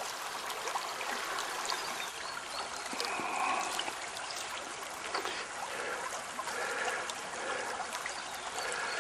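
Fast shallow river water running and rippling over a riffle, a steady rushing hiss.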